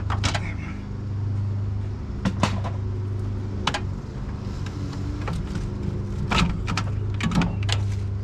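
Irregular sharp clicks and knocks of hard plastic and metal as a plastic radiator support cover and parts are lifted and handled at the front of a pickup's engine bay, over a steady low hum.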